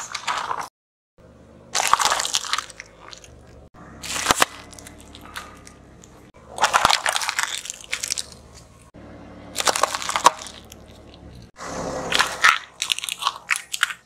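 A car tyre rolling slowly over small objects on asphalt and crushing them, plastic drinking straws among them. About five separate bursts of crunching and cracking, each about a second long and a few seconds apart.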